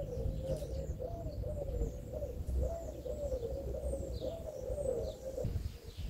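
A pigeon cooing, a low rolling coo repeated over and over, with faint high chirps of small birds now and then.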